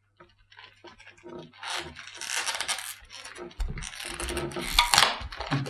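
Cardboard box of A4 laminating pouches being handled: rustling, scraping and clattering of card and plastic film that builds up and is loudest around four to five seconds in.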